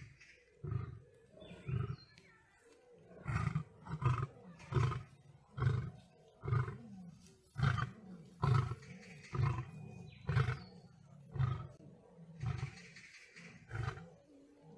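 Male lion roaring: a long run of short, deep grunts, about one a second, strongest in the middle.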